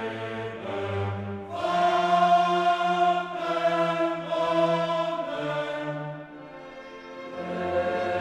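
Background classical music: a choir singing long held chords with an orchestra. It drops to a quieter passage about six seconds in, then swells again near the end.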